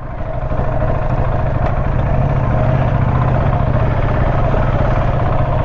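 Motorcycle engine running steadily at even revs, with no rise or fall in pitch.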